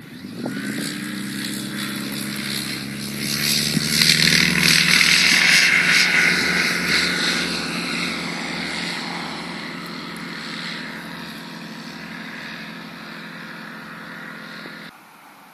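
Pipistrel Sinus light aircraft's propeller engine running through its take-off and climb-out. It grows loudest about four to six seconds in as the plane passes, then fades as it climbs away, and cuts off abruptly near the end.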